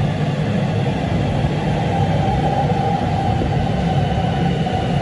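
X'Trapolis electric train running into an underground station platform: a steady heavy rumble of wheels on rail, with a faint whine that drifts slightly lower in pitch from about two seconds in.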